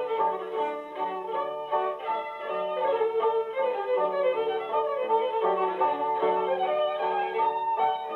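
A fiddle playing a tune with quick runs of notes, continuing without a break.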